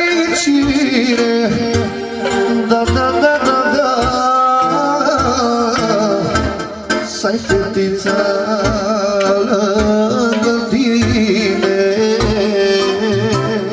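Live band music played through loudspeakers: a man singing into a microphone over instruments, including a saxophone, with a steady beat.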